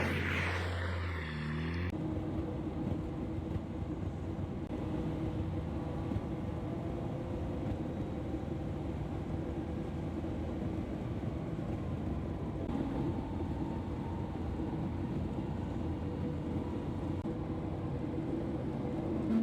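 A car running at a steady cruising speed, with engine drone and road noise.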